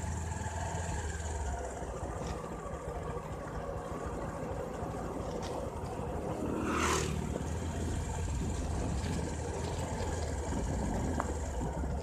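Bajaj Discover 150F's single-cylinder engine running steadily under way, under a haze of wind and road noise, with a brief rush of noise about seven seconds in.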